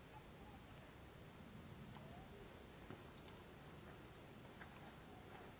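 Near silence: quiet outdoor ambience with a few faint, short bird chirps, one around half a second in and another around three seconds in.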